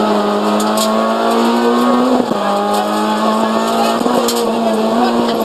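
Renault Clio RS rally car's 2.0-litre four-cylinder engine under hard acceleration, heard from inside the cabin: the revs climb, drop sharply about two seconds in at a gear change, then climb again with a brief dip near the end.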